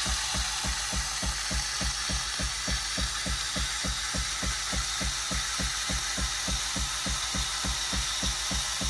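Philips 4300 LatteGo espresso machine frothing milk: a steady hiss with a fast, even pulsing of about five to six beats a second.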